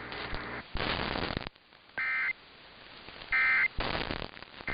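Three short bursts of EAS end-of-message data tones, the digital SAME warble that closes a weather alert. They come about a second apart and are mixed with crackling radio static.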